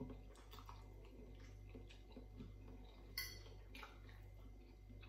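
Faint chewing of a mouthful of ramen noodles, with a few light clicks of a metal fork against a ceramic plate; the sharpest click comes a little after three seconds in, another soon after. A faint steady hum lies underneath.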